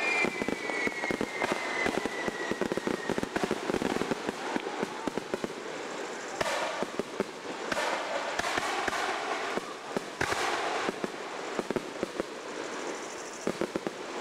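Aerial fireworks crackling overhead: a dense run of rapid crackles and pops, with a whistle falling in pitch in the first few seconds. A few louder bursts of crackle come around the middle, then it thins to scattered pops near the end.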